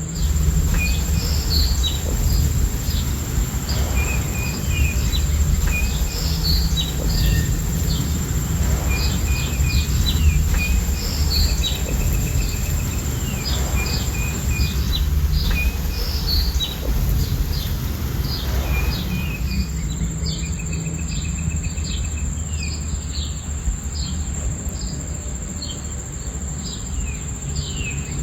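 A nature soundscape of songbirds chirping repeatedly over a steady high trilling of crickets, with a constant low rushing rumble underneath. The cricket trill drops out for a few seconds in the middle.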